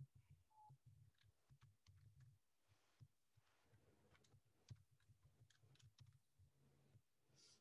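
Near silence, with faint scattered clicks of computer keys being typed.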